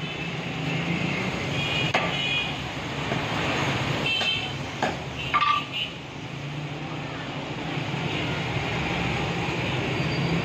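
Steady street traffic: engines of passing vehicles running with a constant low hum, mixed with background voices. A few sharp metallic clinks ring out about two seconds in and again around four to five and a half seconds in.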